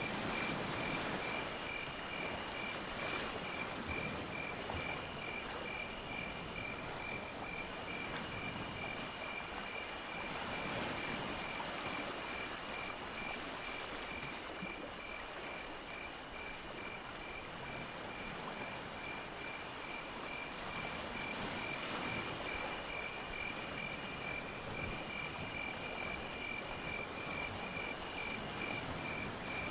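Crickets and other insects chirping: one keeps an even chirp about three times a second, while higher-pitched insect trills stop and start every second or two, over a steady background hiss.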